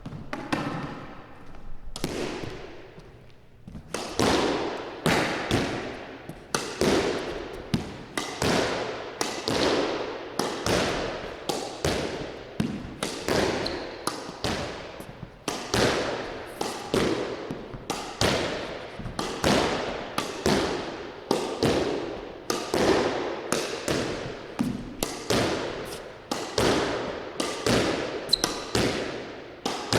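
Squash ball hit repeatedly with a racket in a solo drill, cracking off the racket and the court walls, each hit with a short echo. A few hits at first, then a steady run of about two hits a second from about four seconds in.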